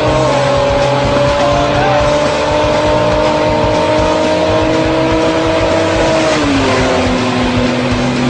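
A car engine held at high, steady revs over a loud rushing noise, its pitch easing down a step about six and a half seconds in.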